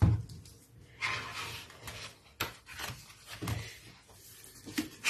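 Sketchbook paper pages being turned and handled by hand: paper rustling and rubbing, with a few soft knocks of the book against the wooden table.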